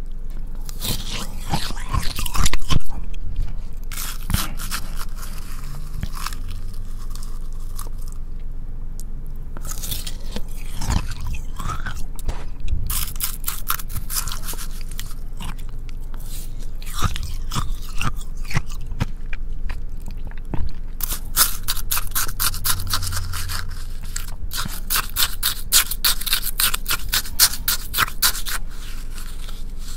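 A plastic spoon stirring and scraping shaved ice in a paper cup, a close crunching and scraping of ice, with two longer runs of quick strokes, one about halfway and one near the end. The ice is being mixed so that it melts into strawberry juice.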